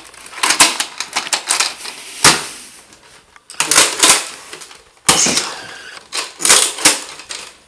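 Nerf blaster firing foam darts: volleys of sharp clicks and snaps, one group after another every second or so.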